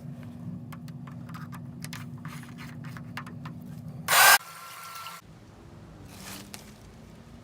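A steady low mechanical hum with scattered clicks, cut about four seconds in by a brief, very loud burst of noise, after which a quieter hum continues.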